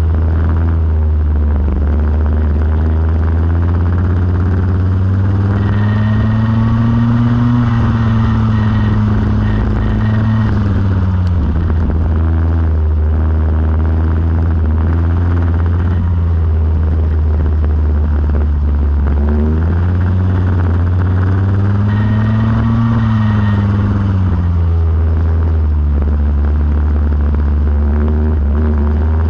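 Go-kart engine running throughout. Its pitch climbs and falls back twice, as the kart accelerates down a straight and slows again: once in the first third and again about two-thirds of the way through.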